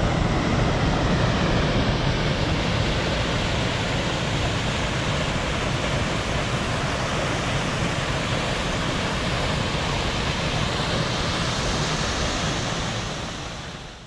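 Steady rush of water from several small waterfalls pouring over lava rock into a river, fading out near the end.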